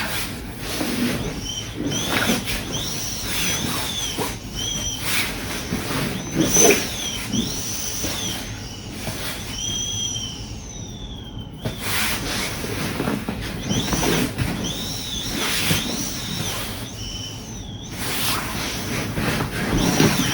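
Air hissing and squealing out of the open valve of a self-inflating foam sleeping pad as it is rolled up and pressed down, with rustling of the pad's fabric. The squeals come in short rising-and-falling bursts about once a second, with a quieter pause about halfway through.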